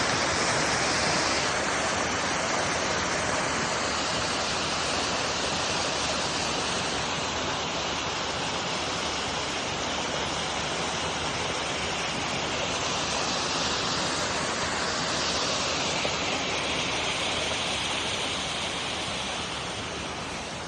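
Waterfall rushing: a steady, unbroken wash of falling water that grows slightly fainter near the end.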